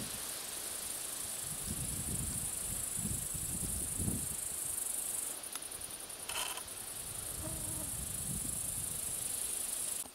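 Steady high-pitched chirring of meadow insects, over an uneven low rumble, with a brief sharper sound about six seconds in.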